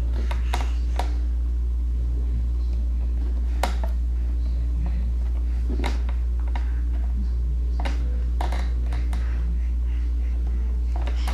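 A steady low hum runs throughout, with scattered light taps and knocks from a baby's hands on a plastic ride-on toy.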